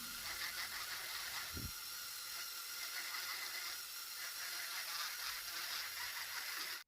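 Steady whirring hiss of a Dremel-type rotary tool grinding wood, with a brief low bump about a second and a half in; the sound cuts off suddenly near the end.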